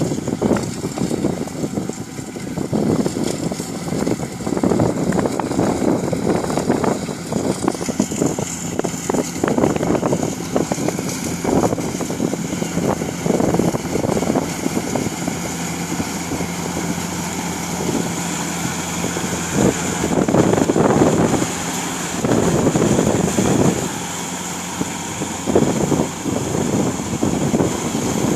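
A motor-driven cutting machine running, with irregular rough surges of noise. A steady low hum sounds for a stretch in the middle, and a high whine runs throughout.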